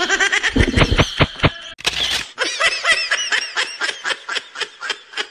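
A person laughing hard in quick pulses of about five a second, with a short catch of breath about two seconds in.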